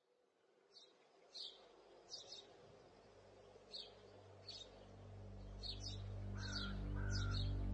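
Birds chirping in short, high, repeated calls. A low sustained drone fades in from about five seconds in and grows louder.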